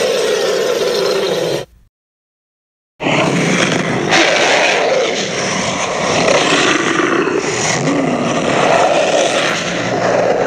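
Creature roar sound effect for the fictional dinosaur Arkosaurus: a rough roar that cuts off about a second and a half in, then after a second of silence a second, much longer roar of about eight seconds.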